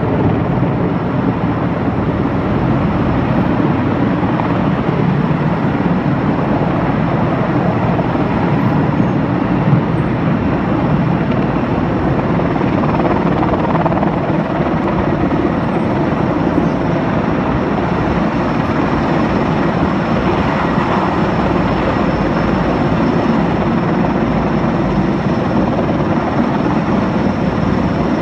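Sikorsky S-64 Skycrane heavy-lift helicopter overhead carrying a slung load on a long cable. Its rotor and turbine noise is steady and loud.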